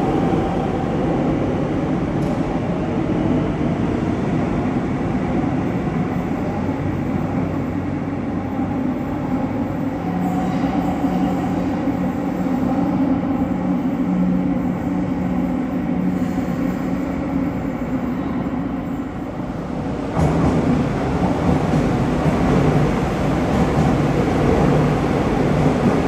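Madrid Metro train running out of an underground station, a steady rumble of wheels and motors echoing along the platform. About twenty seconds in the sound cuts abruptly to a louder train rumble.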